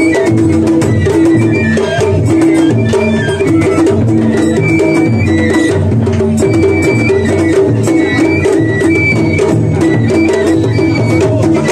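Japanese festival float music (matsuri-bayashi), loud and continuous: taiko drums beat a steady rhythm with sharp rim and wood strikes, under a high melody of held notes that keep changing pitch.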